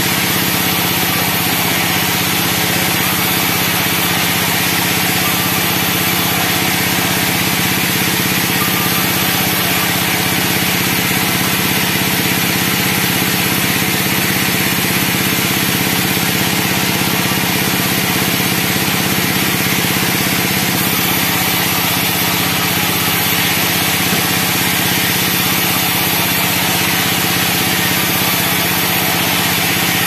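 Band sawmill running steadily as pine logs are fed through and sawn into slabs: a constant machine hum with a broad hiss over it, unchanging throughout.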